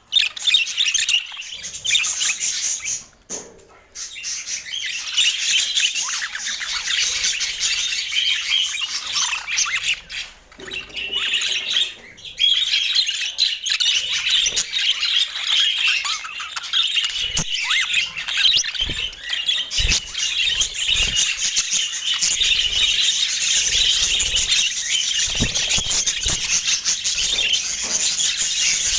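A flock of budgerigars chattering and warbling, a dense run of overlapping chirps and squawks, briefly dropping off twice in the first half. Soft low thumps sound now and then in the second half.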